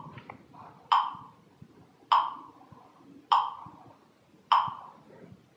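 Metronome ticking, a short sharp 'toc' about every 1.2 seconds, four times. It paces a speed-reading drill: each tick signals the reader to move to the next line.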